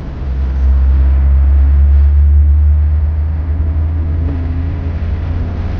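Low, steady rumble of a car in motion, road and wind noise, growing louder about a second in.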